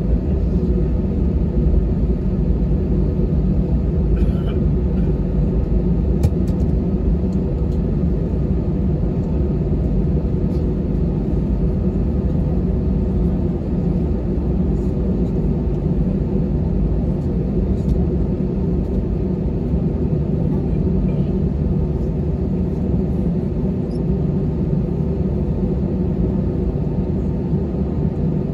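Cabin noise inside a taxiing Airbus A320: a steady low rumble of the jet engines at taxi power and the airliner rolling along the taxiway, heard through the fuselage.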